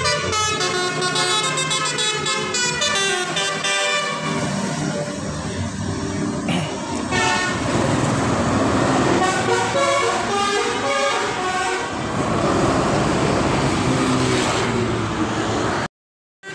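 Indonesian bus 'telolet' horn: a multi-tone musical air horn playing a quick melodic tune of shifting pitches over the noise of the bus. It cuts off abruptly near the end.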